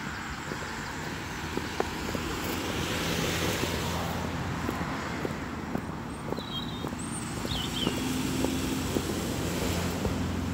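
Walking boots stepping along a dry dirt path over a steady rushing background noise, with a few short bird chirps about two-thirds of the way in.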